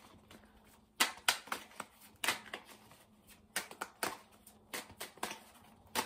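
A tarot deck being shuffled by hand: a quiet, irregular run of a dozen or so soft snaps and slaps as the cards are pushed from hand to hand.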